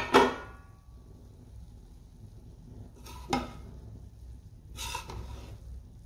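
A metal spoon in a large aluminium pot of steamed rice pulao: a sharp metal clank that rings briefly at the start, a single knock about three seconds in, then a short scrape as the spoon lifts the rice, with a faint low hum underneath. The rice is being checked after steaming on dum.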